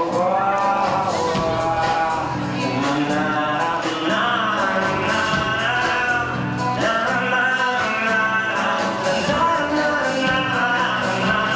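Background music: a sung song with instrumental accompaniment.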